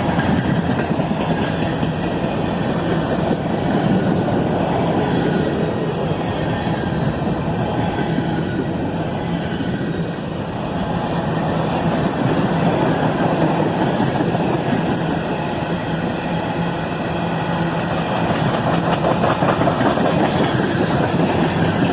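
CSX manifest freight train rolling past at speed: a steady rumble of car wheels on the rails, with some clickety-clack.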